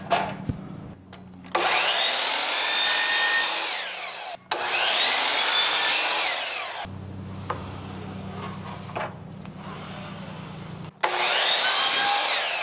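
DeWalt 12-inch double-bevel sliding miter saw running and cutting through a wooden board in three runs of two to three seconds each, every run cut off sharply. A quieter steady low hum fills the gap between the second and third runs.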